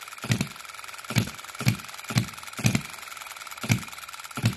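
OKMO B01 model hit-and-miss engine, a 3.4 cc four-stroke petrol engine, running: sharp firing pops about twice a second with a few longer gaps between hits. Each is a long, powerful hit, with the ignition now timed to fire just after top dead centre.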